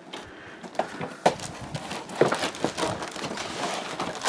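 Handling of a cardboard box and its packing: irregular rustling and scraping with scattered sharp clicks, as the contents are worked loose.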